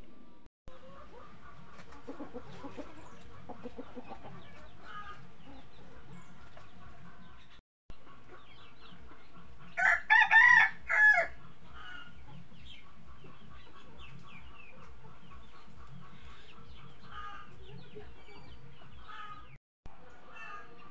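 Chickens clucking softly, then about halfway through a rooster crows once, loud and in several parts over about a second and a half.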